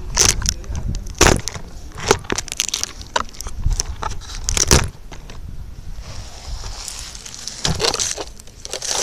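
RC truck driving, heard from a camera taped to its body: a low rumble with repeated knocks, rattles and crunching as it bumps along.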